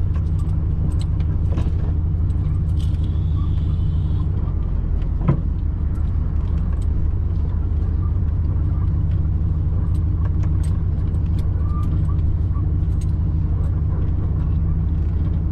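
Pickup truck driving over a rough dirt track: a steady low engine and road rumble with small rattles and clicks throughout, and one sharper knock about five seconds in.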